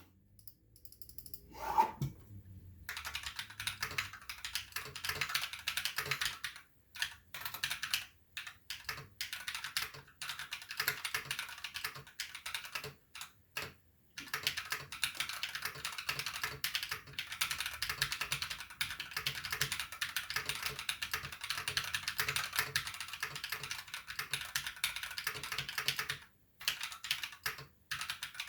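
Continuous typing on a Drop Alt High Profile mechanical keyboard with Glorious Panda tactile switches lubed with G Lube, giving a deep "thocc" key sound, broken by a few short pauses. A brief louder sound about two seconds in, just before the typing starts.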